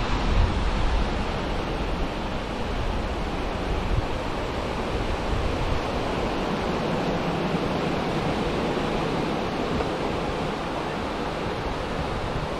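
Steady rushing of sea water and wind, an even wash of noise with no distinct breaking-wave crashes.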